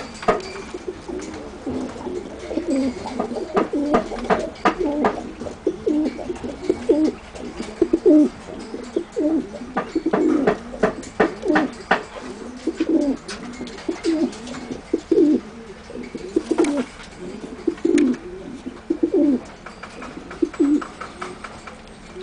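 White domestic pigeons cooing, a steady run of low coos one after another, with scattered sharp clicks among them.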